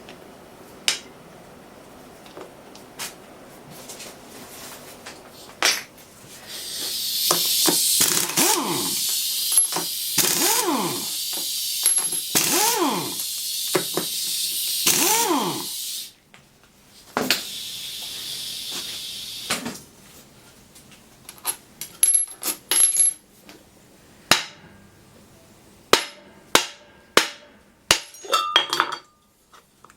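Metal scraping and squeaking as tools work on the alloy housing of a scroll AC compressor during disassembly, with a long stretch of harsh hiss and squeals. Then comes a run of sharp taps and clinks of loose metal parts.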